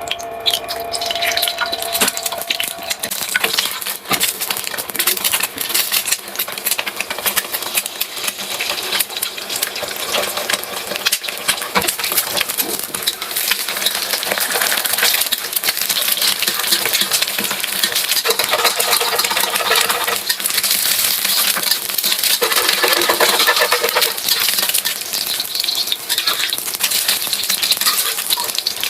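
Dried soybeans rattling and clicking as they are handled: a dense, continuous patter of small hard grains knocking together.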